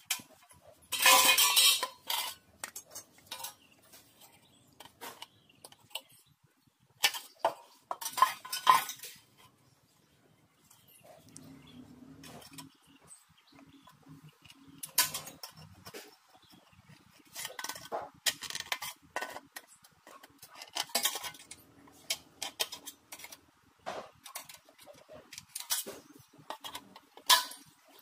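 Aviation tin snips cutting thin lightweight steel C-channel, with sharp metallic clinks and snips of the sheet as the pieces are handled. The sounds come in short irregular bursts with pauses between.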